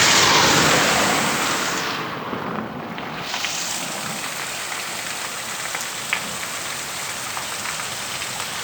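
Heavy rain falling, an even hiss with scattered drips ticking; it is loudest in the first second or so, then settles to a steady level.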